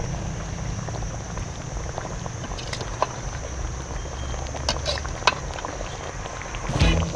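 Pot of curry bubbling at a simmer while a metal ladle stirs it, with a few light clicks of the ladle against the aluminium pot. Music comes in right at the end.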